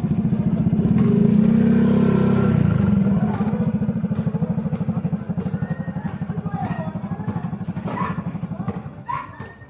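A small motorcycle engine running close by with a rapid pulsing beat, loudest in the first few seconds and fading away toward the end.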